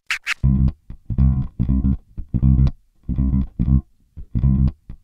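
Intro music: a riff of short, plucked string notes with a heavy bass in a steady rhythm.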